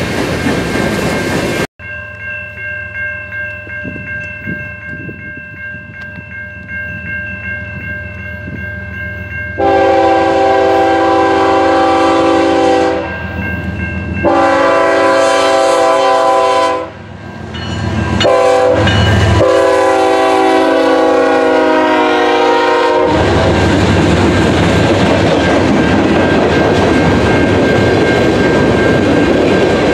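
A CN freight train led by a GE ES44DC diesel locomotive approaches and sounds its multi-note air horn in several blasts, the first two long and the later ones shorter. About two-thirds of the way through, the locomotives pass and the freight cars follow with a steady roar and wheel clatter over the rail joints.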